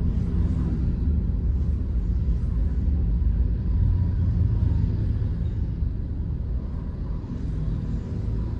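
Inside-the-cabin sound of a 2012 Honda Freed driving slowly along a street: its 1.5-litre L15A i-VTEC four-cylinder engine and tyres make a steady low rumble. The rumble eases off slightly near the end.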